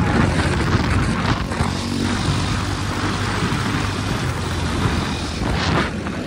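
Motorcycle engine running steadily at road speed, with wind rushing over the microphone. A brief louder rush comes near the end.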